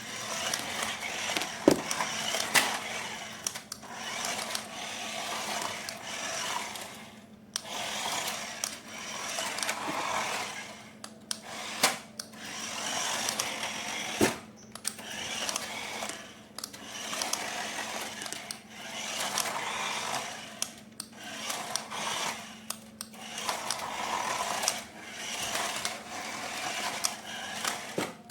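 Small electric motor of a battery-powered RC toy whirring in repeated spurts, about one every two seconds, with a few sharp clicks.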